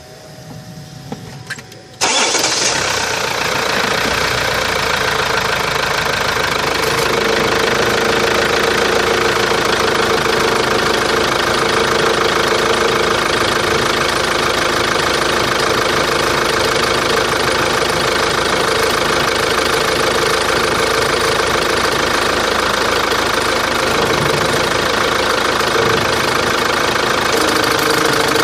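Opel Antara engine starting about two seconds in after a few small clicks, then idling steadily. The engine is making an unusual noise that the owner is checking.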